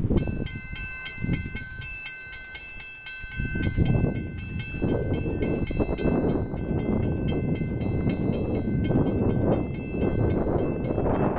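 Railroad crossing warning bell ringing in rapid, even strokes as the crossing activates and its gates come down. A rushing noise builds underneath from about four seconds in.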